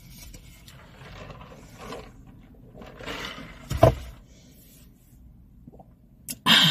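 Close-miked chewing and mouth sounds of someone eating a taco. A brief, sharp, louder sound comes about four seconds in, and another just before the end.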